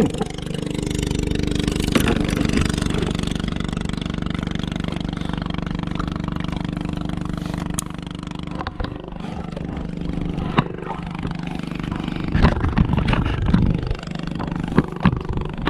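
A boat engine running steadily, a low even hum, with a few sharp knocks and clatters over it.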